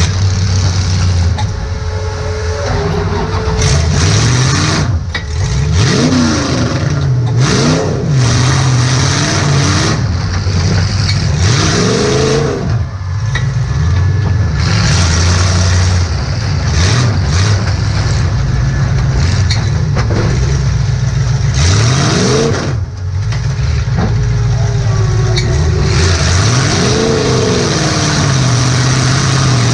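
Demolition derby car's engine heard from inside the cabin, revving up and down repeatedly over a steady running drone, with loud rattling throughout.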